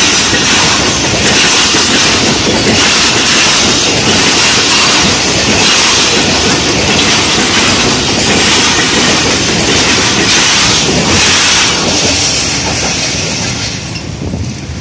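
Pakistan Railways express passenger coaches passing close by at speed: a steady rush of steel wheels on rail, with a repeated clickety-clack as the wheels cross rail joints. The sound fades near the end as the last coach goes by.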